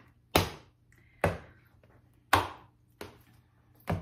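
A deck of tarot cards knocked on a countertop: five sharp knocks at uneven gaps of about a second, the fourth one softer.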